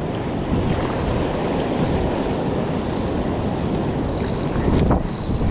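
Steady low rumble of wind buffeting the microphone, mixed with the wash of surf on the beach.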